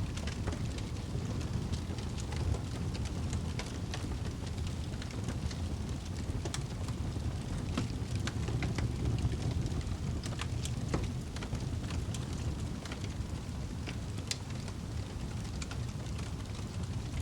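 Wood fire burning in a fireplace: a steady low rumble of flames with frequent small crackles and pops scattered irregularly throughout.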